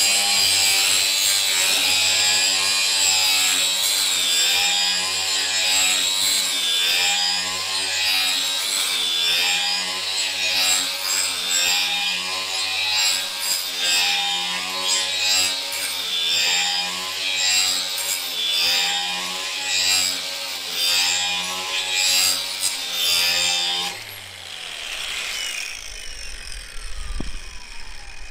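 Angle grinder in a sharpening jig grinding the cutting edge of a steel lawn mower blade at a 30-degree angle. Its motor whine swells and eases about every second and a half as the wheel is worked along the edge. Near the end the grinder is switched off and the whine falls in pitch as the wheel spins down.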